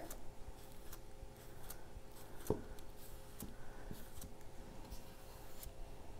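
Faint scratchy strokes of a brush spreading wet Mod Podge sealer over a photo on a wooden board, with a single light tap a little before halfway.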